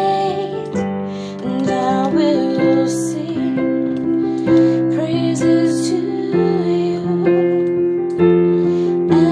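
Gospel worship song: piano or electric keyboard playing slow sustained chords, with a woman's voice carrying the melody above them.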